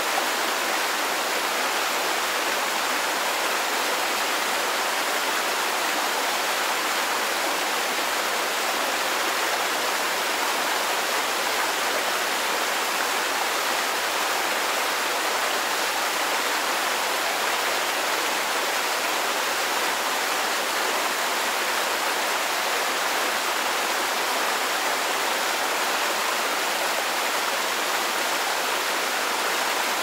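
River stream running: a steady, unchanging rush of flowing water, with little deep rumble.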